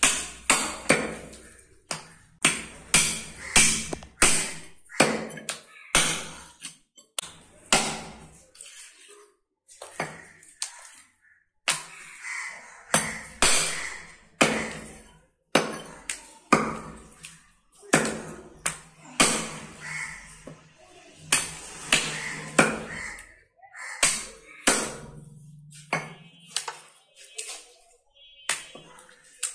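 Heavy butcher's cleaver chopping a goat's front leg, meat and bone, on a wooden stump block: a run of sharp chops about one a second, with a short lull around ten seconds in.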